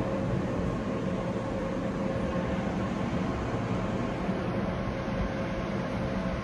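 Steady ambience of an underground metro platform with no train in: an even rumble and hum of station ventilation and distant rail noise, with a faint constant tone running through it.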